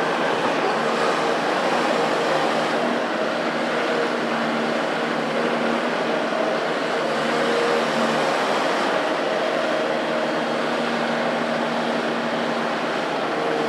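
Caterpillar next-generation excavator's diesel engine and hydraulics running steadily while it swings and digs, a continuous hum with a faint whine.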